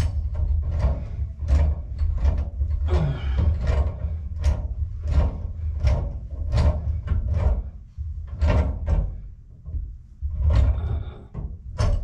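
Repeated knocks, scrapes and rubbing against a Kohler toilet's tank, over a heavy, uneven low rumble, as the supply hose is worked onto the fill valve underneath. The knocks come about twice a second and ease off briefly twice in the second half.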